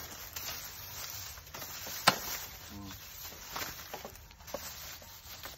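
Scattered knocks and crackles of bamboo culms being cut and handled, with one sharp knock about two seconds in.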